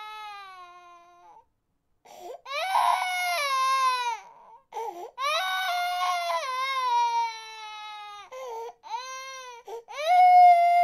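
A baby crying in long cries, each one falling in pitch, with short breaks for breath between them.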